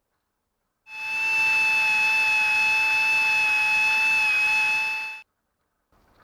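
Air die grinder running at speed: a steady high-pitched whine over air hiss that starts about a second in and stops about a second before the end.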